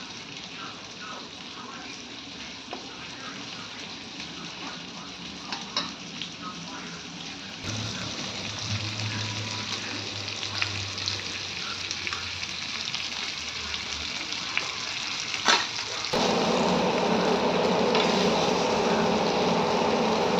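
Fish frying in hot oil: a steady sizzle with scattered crackles and pops, turning suddenly louder and denser about three-quarters of the way in.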